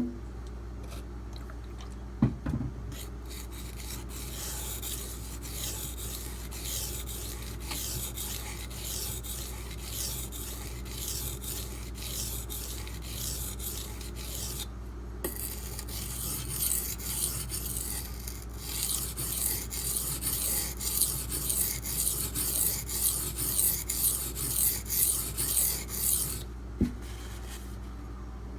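Brous Bionic XL's D2 steel blade being stroked back and forth on a coarse 240-grit silicon carbide benchstone: a long run of gritty scraping strokes that pauses briefly twice and gets louder and quicker in the second half. A few sharp knocks near the start and near the end, as the knife or stone is handled.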